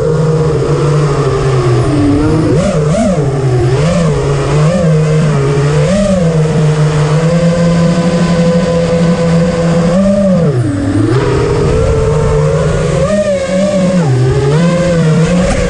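A drone's electric motors and propellers whining, heard from the drone's own on-board camera. The pitch rises and falls with the throttle, holds steady for a few seconds in the middle, and drops sharply about ten seconds in before climbing again.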